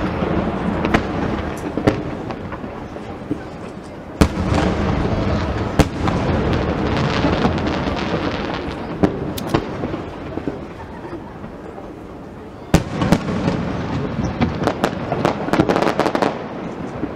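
Aerial fireworks shells bursting in a continuous rolling rumble, with single sharp bangs about four and six seconds in, and a rapid run of crackling bangs over the last few seconds.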